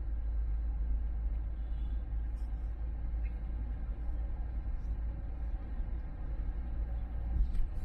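Car driving, heard from inside the cabin: a steady low road rumble, with a short knock near the end.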